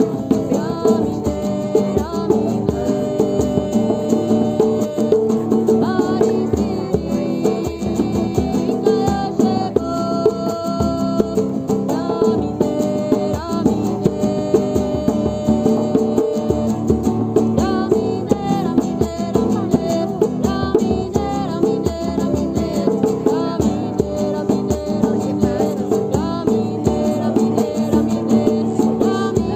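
A chant-style song sung with acoustic guitar strumming, a steady even strum under a held, gliding vocal melody, in the manner of a Huni Kuin prayer chant.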